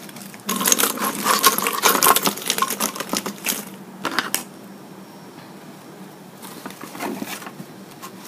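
Small Christmas ornaments clinking and rattling against each other in a mesh bag as hands rummage through them: a dense run of clicks for about three seconds, a short rattle at about four seconds and a fainter one near the end.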